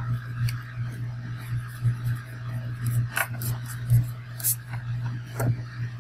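A steady low hum with a few brief, faint scratches and rustles of a pen and hand moving over sketchbook paper.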